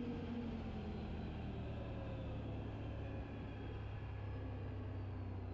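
Can-Am XMR 1000 ATV's V-twin engine running under way at about 50 km/h. Its pitch drops a little in the first second as the quad slows, then holds steady.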